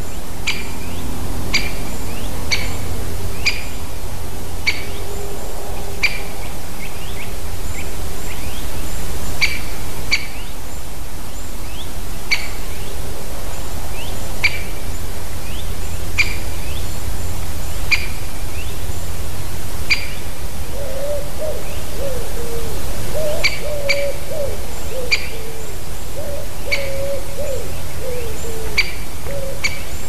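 Great spotted woodpecker giving short, sharp single calls, one every second or two, with a gap of a few seconds about two-thirds of the way through. A lower, wavering call joins from about two-thirds in until near the end, over a steady low rumble.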